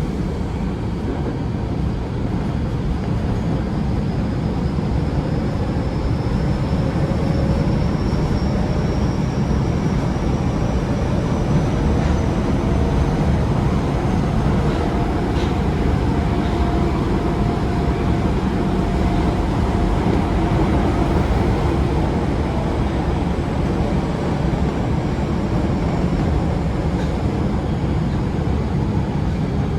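Osaka Metro 22 series subway train with GTO-VVVF control running at speed: a steady rumble of wheels and motors, with a faint high whine slowly rising in pitch over the first half.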